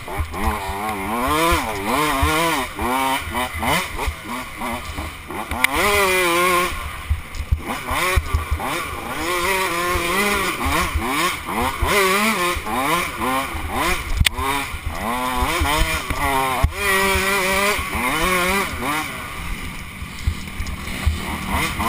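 Two-stroke dirt bike engine ridden hard, its pitch climbing sharply under throttle and dropping back with each gear change or roll-off, over and over. A couple of sharp knocks come later on.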